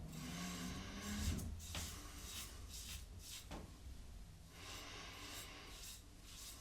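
Double-edge safety razor scraping through lathered stubble in a series of short strokes, on the first pass of a wet shave.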